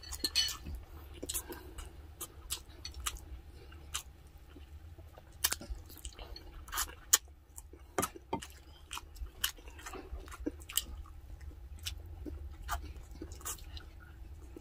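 Close-up chewing of braised pork spareribs and rice, with irregular sharp mouth clicks and smacks every second or so.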